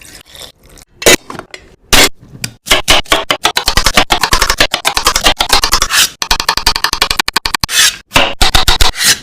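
Kitchen food-preparation sounds: a few sharp knocks, then a long run of quick scraping strokes, many a second, then a few more knocks near the end.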